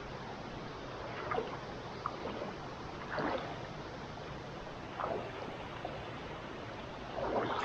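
River water flowing in a steady rush, with a few brief louder splashes.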